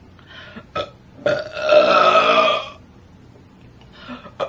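A young woman burping: a couple of small sounds, then one long, loud, steady-pitched burp lasting over a second, and a short smaller one near the end.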